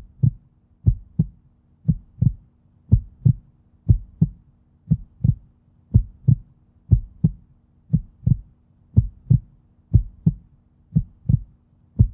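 Heartbeat sound effect: steady lub-dub double thumps about once a second, over a faint steady low hum.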